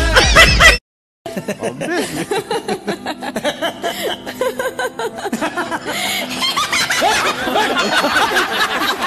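A short stretch of music with singing that cuts off abruptly, a half-second of silence, then a woman laughing in short repeated bursts.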